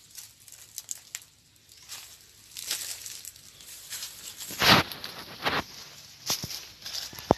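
Dry banana leaves rustling and crackling as someone moves through the plants, in irregular bursts, the loudest about two-thirds of the way through.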